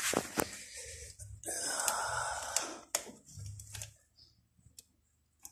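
Clicks and handling noise from battery jumper-cable clamps being checked on a car battery, with a breathy hiss about a second and a half in that lasts about a second. No engine running or cranking.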